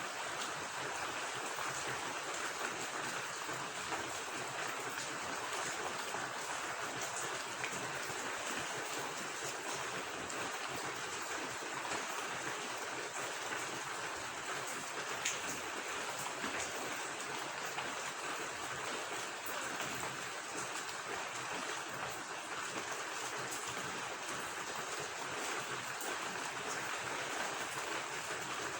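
Steady rain falling together with running water, an even hiss with a few sharper drop taps.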